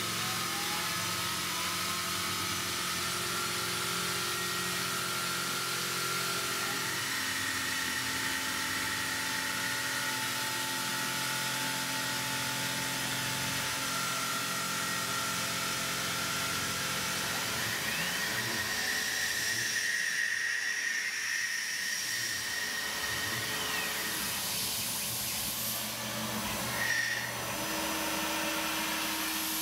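Tormach 770 CNC mill spindle running while drilling into an aluminium part, over a steady hiss of air from the mist coolant nozzle. The spindle's whine shifts to new pitches several times, with a brief louder moment near the end.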